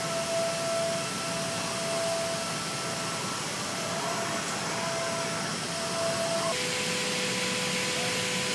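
Robotic paint-booth spraying: a steady hiss of paint spray and air with a thin machine whine that breaks on and off. About six and a half seconds in the sound changes abruptly to a steadier, lower whine.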